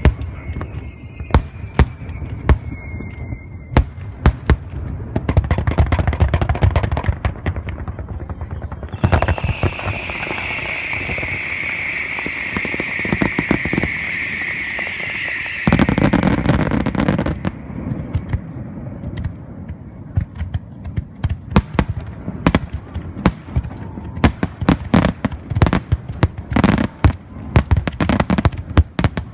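Aerial fireworks shells bursting in quick succession, with many sharp bangs. A falling whistle sounds in the first few seconds. A steady hiss runs through the middle for about six seconds and cuts off suddenly into a heavy low rumble, followed by dense rapid bangs to the end.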